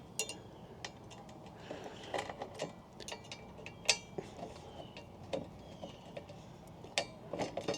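Scattered small metallic clicks and taps at irregular intervals, as screws are backed out and metal TV mounting bars are taken off.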